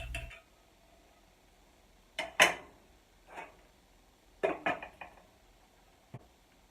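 A few short clinks and scrapes of a kitchen utensil against a pot or dish, in small spaced groups, the loudest about two and a half seconds in.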